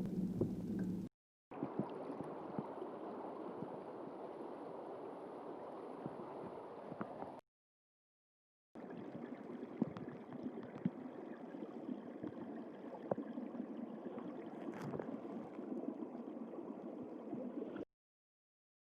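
Underwater recordings of moving water: a steady bubbling, gurgling wash with scattered small clicks. It comes as separate clips with short gaps of dead silence between them.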